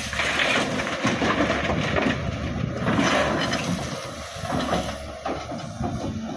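SANY hydraulic crawler excavator running as it empties a bucket of earth and stones into a dump truck's steel body, the load spilling and rattling in with a steady, heavy mechanical noise.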